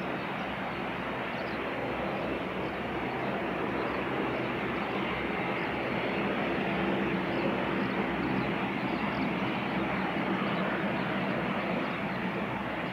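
Japan Airlines Boeing 787-8's GEnx turbofan engines running at taxi power as the airliner turns onto the runway. Steady jet engine noise that swells slightly in the middle.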